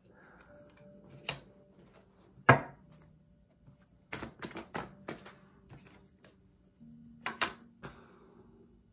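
A deck of tarot cards handled and shuffled by hand: scattered sharp clicks and taps of cards against each other. The loudest is a single thump about two and a half seconds in, with a quick run of clicks a little later and two more near the end.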